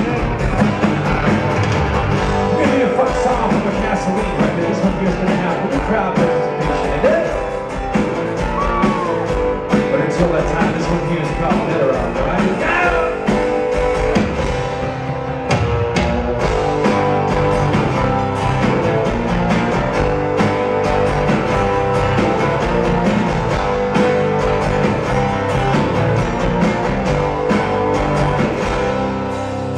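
Acoustic rock band playing live: strummed acoustic guitars over a drum kit, with a voice singing, heard from among the audience in a concert hall.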